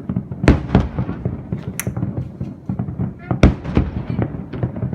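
Aerial fireworks bursting: two sharp booms about half a second in, a louder one about three and a half seconds in, and smaller cracks and crackles between them.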